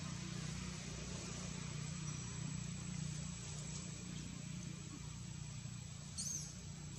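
Steady low hum and hiss of outdoor background noise, like distant traffic or an engine, with a brief high chirp about six seconds in.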